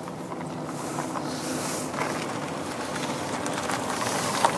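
Steady rushing outdoor noise with a few faint clicks and scrapes of a knife working at an oyster shell, and one sharper click near the end.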